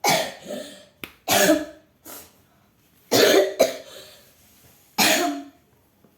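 A person coughing in about five hard fits, some of them double coughs, with a longer pause before the last one.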